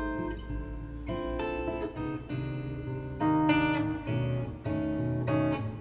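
Instrumental break of a jazz song: guitar plucking chords over bass, played back through hi-fi loudspeakers and picked up by a room microphone.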